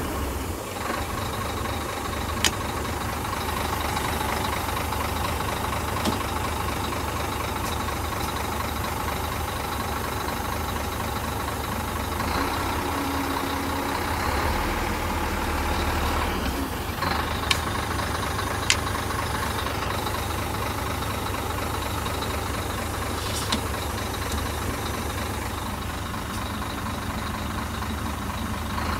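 Scania dump truck's six-cylinder diesel engine idling steadily, heard from inside the cab, with a few sharp clicks.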